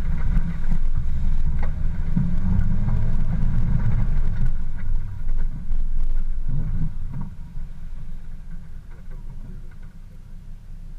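Off-road vehicle driving slowly along a rutted dirt track, a low engine and driving rumble. It eases off from about seven seconds in and fades as the vehicle rolls to a stop.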